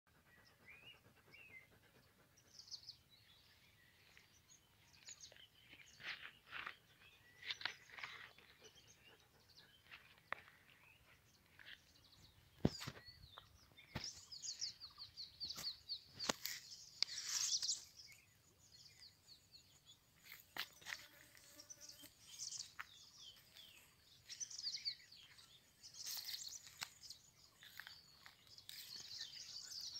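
Small birds chirping and trilling faintly, many short high calls scattered throughout, with a couple of sharp clicks a little before the middle.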